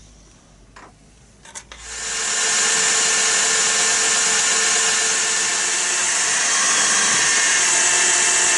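Bench drill press switched on about two seconds in and running steadily, its bit boring a pin hole through a beech wooden handle scale clamped to a steel knife blank. A couple of light knocks come before it starts.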